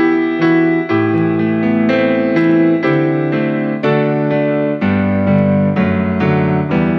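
Instrumental keyboard music in piano tone: chords and a melody line, the notes struck about twice a second.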